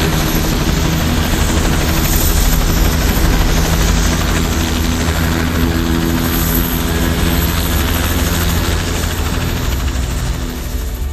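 Helicopter running close by: a steady, loud rotor and engine noise that holds throughout and falls away right at the end.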